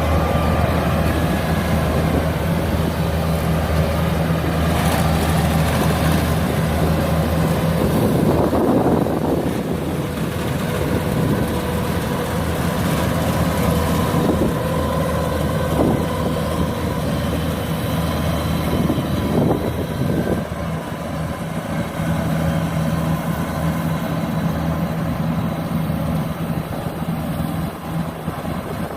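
Kubota DC93 rice combine harvester's diesel engine running steadily while it harvests, a constant low drone, with the sound growing louder and shifting between about 8 and 20 seconds in.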